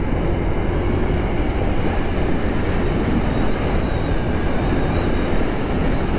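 Small motor scooter riding along at a steady speed: a continuous rush of wind on the microphone over the running engine and tyre noise, with no change in pace.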